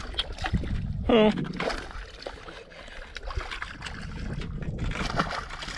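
A hooked bass splashing and thrashing at the water's surface as it is played on a spinning rod toward the boat. A short shout comes about a second in.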